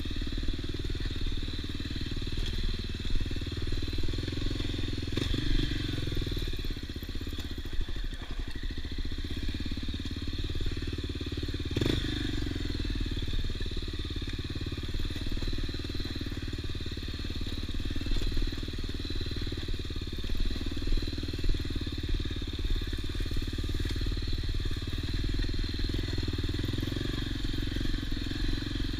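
Off-road motorcycle engine running steadily.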